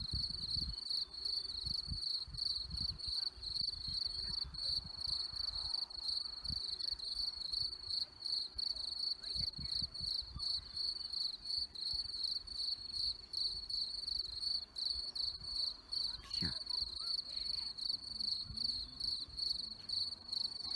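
Crickets chirping in a steady chorus: a high, even trill that pulses a few times a second, with low rumbles on the microphone.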